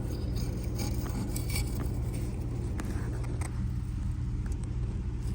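A brush scrubbing back and forth over a rusty gas water heater burner part, cleaning off the rust, over a steady low hum.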